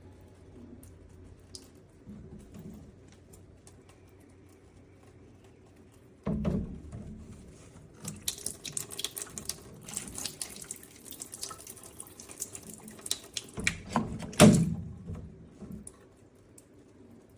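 Water running into a plastic container for about six seconds. A dull plastic thud comes about six seconds in, before the water starts, and a louder knock comes as the water stops.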